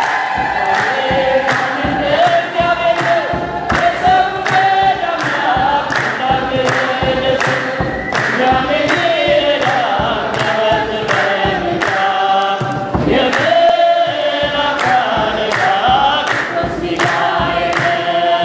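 Ethiopian Orthodox mezmur sung by a choir and congregation, with steady hand clapping a little under two beats a second and kebero drum beats.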